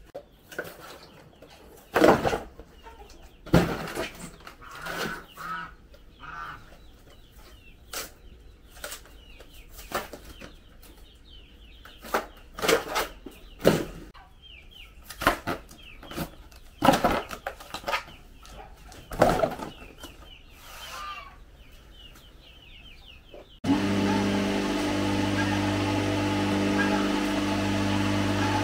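Chickens clucking and flapping, with irregular sharp knocks and scuffles. Near the end it cuts abruptly to an engine running steadily.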